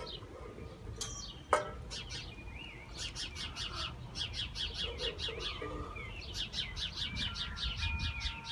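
House sparrows chirping in quick repeated runs, about six chirps a second, with short gaps between the runs. One sharp knock about a second and a half in is the loudest sound.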